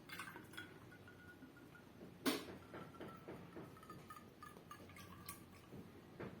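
Light clicks and clinks of kitchenware being handled, with one sharper clink about two seconds in that leaves a faint ringing tone.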